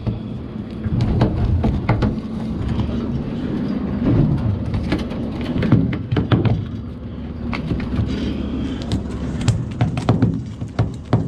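Steady low hum of the boat's machinery, with scattered clicks and knocks from handling a snapper on the deck.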